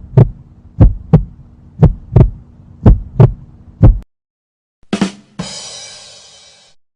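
Heartbeat sound effect: a low lub-dub double thump about once a second, five beats, stopping about four seconds in. About a second later a short hit is followed by a shimmering sound that fades out.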